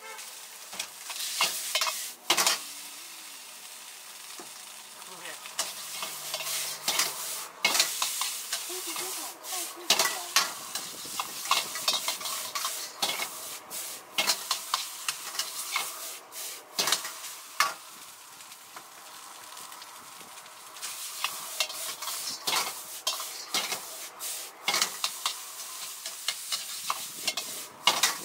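Egg fried rice sizzling in a wok over a high flame, with a metal ladle scraping and clanking against the wok again and again as the rice is stirred and tossed.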